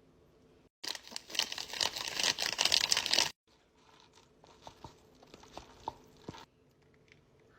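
Close-miked eating sounds from a noodle mukbang: a loud, dense crackling stretch of about two and a half seconds, cut off suddenly, then a few seconds of softer scattered wet clicks of chewing.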